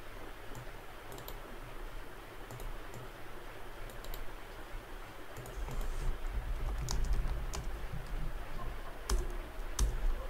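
Typing on a computer keyboard: scattered key clicks over a low rumble that grows heavier about halfway through.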